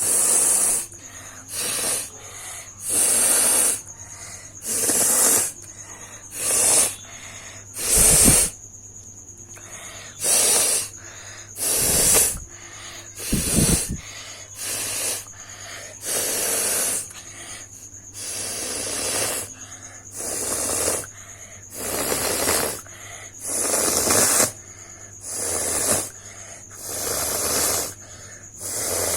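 A person blowing their nose hard, over and over: about eighteen forceful blasts of air through the nose, one every second and a half or so.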